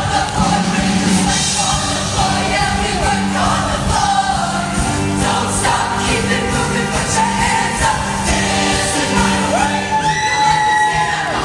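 A show choir singing over loud, upbeat accompaniment, with one voice sliding up into a high held note near the end.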